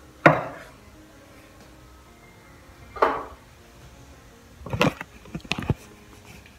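A piercing aftercare pump spray bottle spritzed twice, each a short sharp hiss, the first the loudest. Near the end comes a quick cluster of knocks and rubbing.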